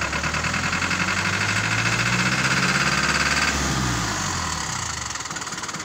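Toyota four-cylinder turbo diesel truck engine revved up for about three seconds, then falling back toward idle. The owner says it shakes and puts out black smoke under throttle; the mechanic suspects a weak cylinder, leaving it running on three and a half, or dirty injectors.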